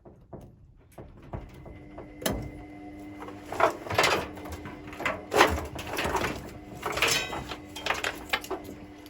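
Irregular knocks, clunks and clatter of washing-machine panels and parts being handled, over a steady hum that starts about a second and a half in.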